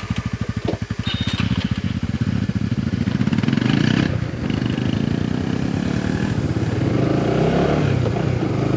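Motorcycle engine running and pulling away, its individual firing pulses plain at first, then building into a louder, steadier note with a brief dip about four seconds in.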